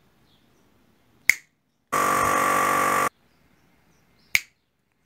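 Two sharp finger snaps about three seconds apart. Between them comes about a second of steady humming noise that starts and stops abruptly.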